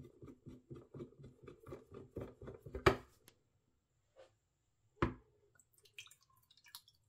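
A hand screwdriver turning screws into the plastic base of an ultrasonic cleaner: quick even ticks about five a second, ending in a loud knock. A second knock follows, then water poured from a mug trickles into the cleaner's empty stainless-steel tank near the end.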